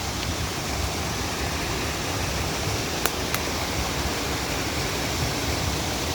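Waterfall rushing steadily, with two short clicks about halfway through.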